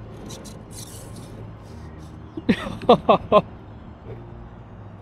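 A person's short vocal outburst: four quick loud voiced cries over about a second, starting about two and a half seconds in, over a low steady background with a few faint hissing rustles near the start.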